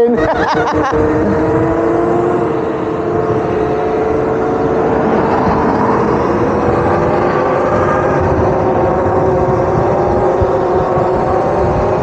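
Electric dirt bike cruising at speed: the motor's whine holds a near-steady pitch that drifts slowly, over heavy wind rush and tyre noise.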